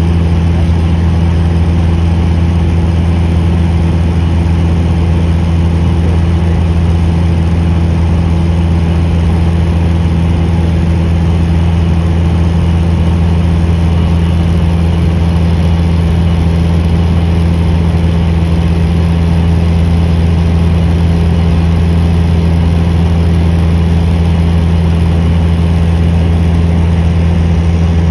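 Steady drone of an airplane in flight, heard from inside the cabin: engine and airflow noise with a deep, unchanging hum.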